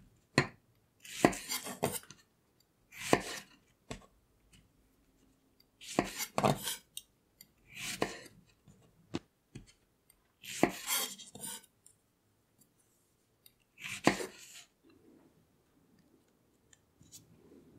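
Kitchen knife slicing small strawberries on a wooden cutting board: sharp cuts ending in knocks of the blade on the board, in clusters one to two seconds apart. In the last few seconds only faint handling sounds remain.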